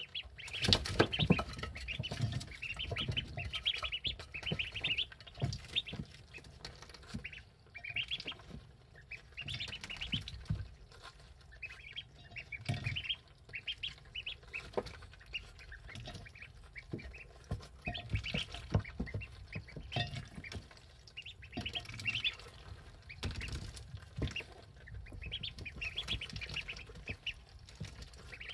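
Ducklings about eleven days old peeping in short runs of high, repeated calls, with soft low knocks among them.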